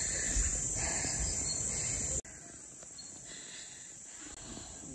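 Steady high-pitched insect chorus, typical of crickets, with a low rumble under it that cuts off abruptly about two seconds in, leaving the insects quieter.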